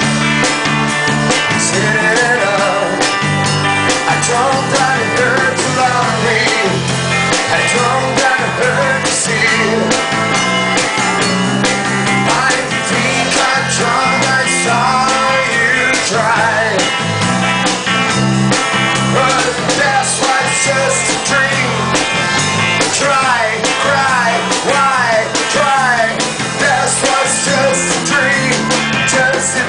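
A live rock band playing, with a melodic line carried by electric guitar or voice over bass and drums.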